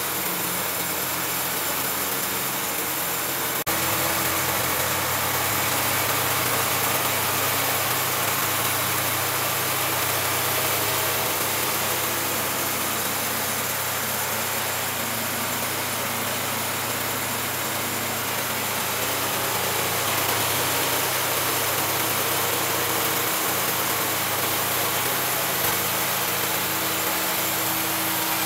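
Horizontal band sawmill powered by a 16 HP engine, running steadily under load as its band blade cuts through a hard teak log: a constant engine hum under an even high hiss.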